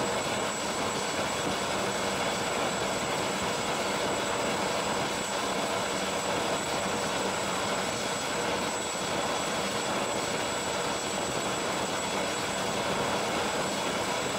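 Helicopter on a helideck with its rotor turning at idle: a steady, unchanging rush of turbine and rotor noise with a thin high whine over it.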